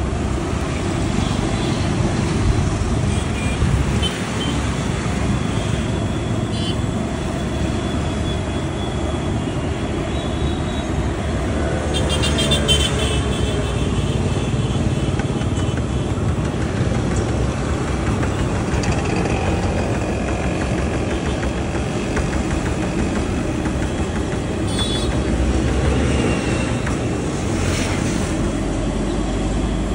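Steady road traffic noise from a busy street, with vehicles passing throughout.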